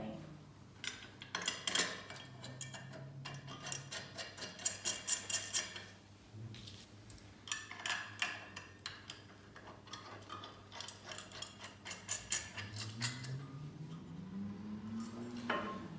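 Metal clicks and clinks of hand tools and steel bender parts being handled, as bolts on a tube bender's follow bar support plate are fitted and tightened, some clinks ringing briefly.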